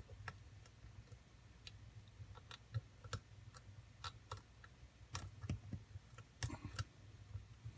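Faint, irregular small metallic clicks and ticks of a lock pick working the pin stacks of an ABUS padlock under tension, a few a second, with a low steady hum underneath.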